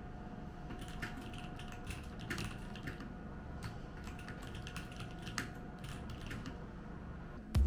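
Typing on a MelGeek mechanical keyboard: irregular, quick keystroke clicks begin about a second in, over a steady low background hum. Music comes in abruptly right at the end.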